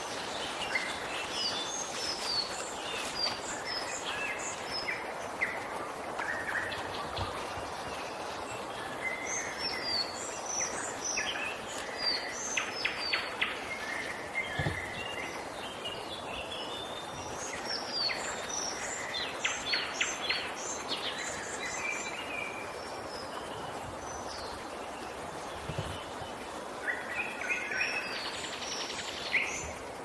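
Several wild songbirds singing, with many short chirps, whistled phrases and quick trills overlapping throughout, over a steady background hiss.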